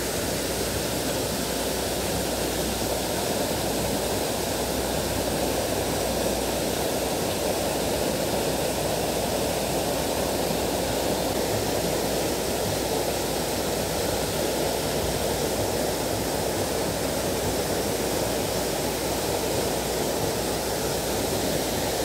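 Waterfall pouring into a pond: a steady, even rushing of water with no breaks.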